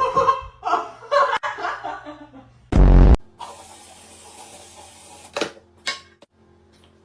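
Laughing voices, then a very loud half-second blast about three seconds in, followed by a couple of seconds of hissing and two short clicks.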